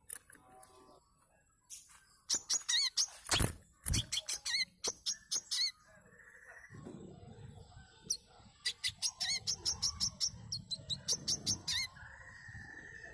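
Brown-throated sunbird (manggar, kolibri kelapa) singing in two bursts of rapid, sharp, high chirps and twitters, each ending in a short held whistle, used as a lure call.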